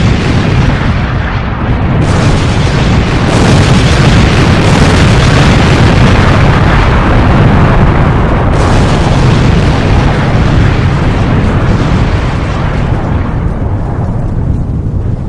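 Long, loud explosion rumble with a heavy low end and crackling noise throughout, easing off over the last couple of seconds.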